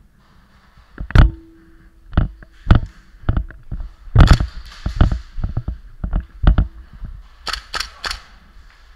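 MK18 gas blowback airsoft rifle firing, sharp irregular cracks from the gas blowback action, a dozen or so spread over several seconds with a quick run of three or four near the end.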